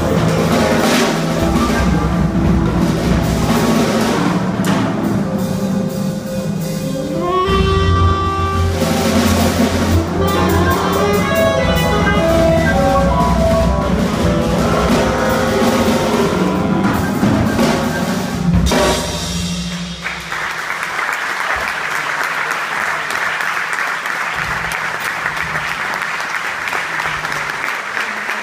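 Live jazz quintet playing the closing bars of a tune: tenor saxophone over piano, double bass and drum kit with busy cymbals. The band stops about two-thirds of the way through and the audience breaks into applause.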